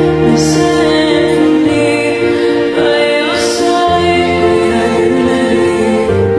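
Background music: a slow song of sustained chords over a bass line that changes every second or two, with two short bright swells up high, about half a second and three and a half seconds in.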